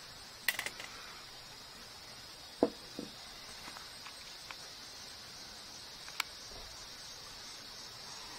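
Steady, high-pitched chorus of insects, with a few sharp clicks and taps, the loudest about two and a half seconds in.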